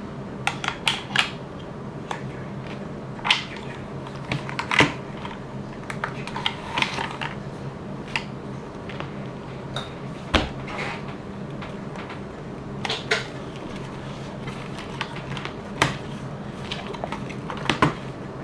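Packaging and small hard objects being handled and unboxed: irregular clicks, taps and rustles at uneven spacing, over a steady low hum.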